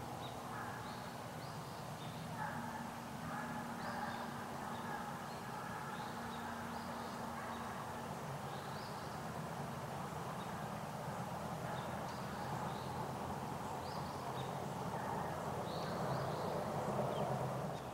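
Distant animal calls with short bird chirps, over a steady low hum.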